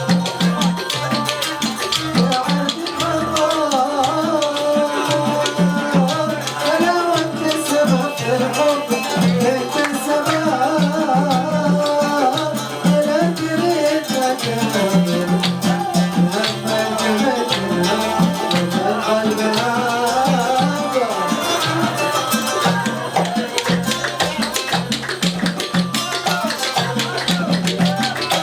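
Music: an Arabic song with a wavering melody over a steady, regular drum rhythm and shaken rattle-like percussion.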